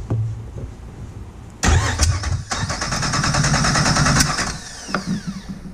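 Starter motor cranking a Jeep Wrangler TJ's 4.0-litre inline-six for about three seconds with a compression tester in one cylinder; the engine spins over without firing. It starts suddenly and winds down with a falling whine.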